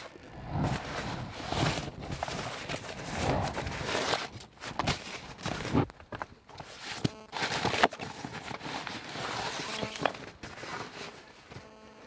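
Footsteps and rustling as camping gear is handled and laid out: irregular crunches, scrapes and knocks, with a short rasp about seven seconds in and again near the end.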